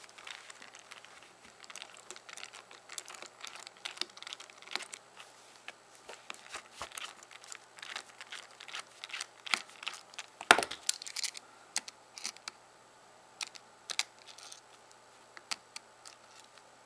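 Small T4 Torx screwdriver and fingers working the screws out of a BlackBerry 8300-series phone's plastic housing: irregular light clicks and scrapes, with one sharper click about ten and a half seconds in.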